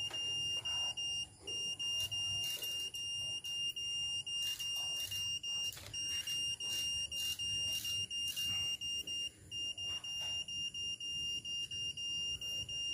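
Satellite signal finder beeping: one high tone in quick short pulses, about three a second, with brief longer pauses now and then. The beeping is its signal indication while the dish is being aimed at the satellite; a beep means the dish is picking up the signal.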